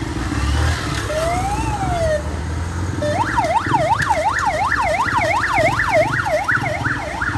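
Fire-department ambulance siren starting up as the ambulance pulls away. One slow rising-and-falling wail comes about a second in. From about three seconds, a fast up-and-down sweep repeats about three times a second, over the low running of vehicle engines.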